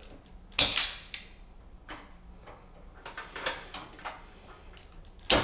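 IRWIN Vise-Grip self-adjusting wire stripper squeezed on insulated heater leads, its jaws snapping shut and springing open as the insulation is pulled off. Several sharp clicks, the loudest about half a second in and just before the end.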